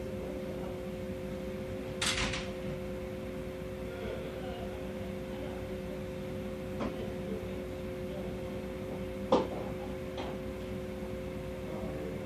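Steady mechanical hum holding two even tones, with a short hiss about two seconds in and a few sharp clicks, the loudest about nine seconds in.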